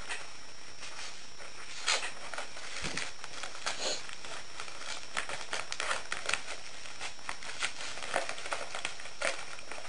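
Packaging being opened by hand: paper and plastic rustling and crinkling in short irregular bursts with small crackles, over a steady hiss.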